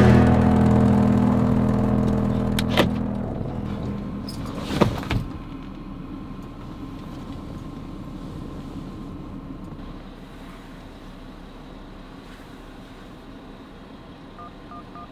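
A long car-horn blast, held steady, fading and stopping about three seconds in, with two sharp clicks soon after. Then the low steady rumble of a car with its engine running, heard from inside the cabin.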